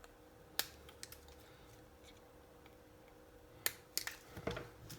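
A few short, sharp clicks and taps from handling a circuit board and small hand tools on a workbench: one about half a second in and three close together near the end, over a faint steady hum.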